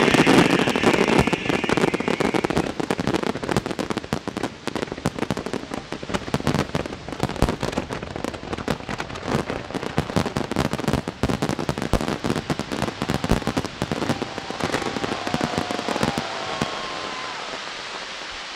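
Fireworks crackling in a dense rapid run of pops and crackles that thins out and dies away over the last few seconds.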